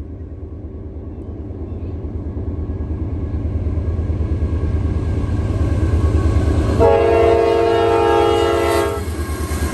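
Approaching freight train's diesel locomotives: a low rumble that grows steadily louder, then one air-horn blast of about two seconds, a chord of several notes, near the end.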